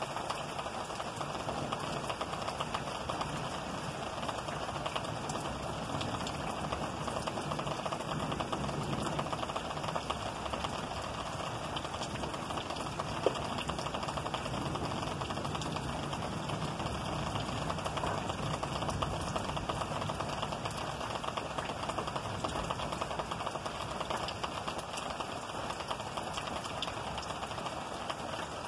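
Steady heavy rain: a dense patter of drops hitting a surface, with one sharp click about halfway through.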